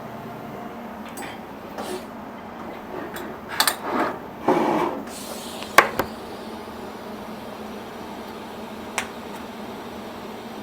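A few knocks, clicks and a short scrape of tools and metal parts being handled at a welding bench, the sharpest click about six seconds in and one more near the end, over a steady background hum.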